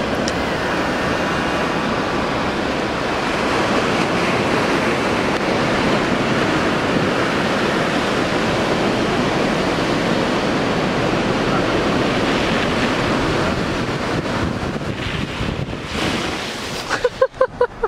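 Steady rush of wind on the microphone and breaking surf, heard from a car driving along the water's edge on a sandy beach. A short run of loud pulses comes near the end.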